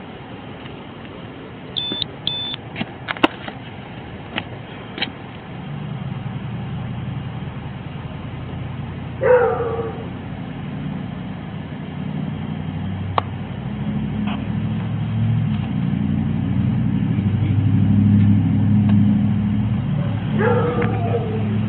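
A vehicle engine running with a low rumble that grows louder from about six seconds in. A dog barks once about nine seconds in and a couple of times near the end, and a few sharp clicks come in the first five seconds.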